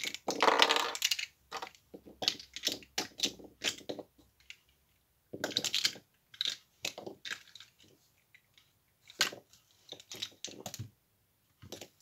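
Plastic Rubik's cube pieces clicking and clattering as loose corners and edges are picked off a mat and fitted into a 3x3 cube by hand: irregular runs of quick clicks, the longest and loudest near the start, with two short pauses.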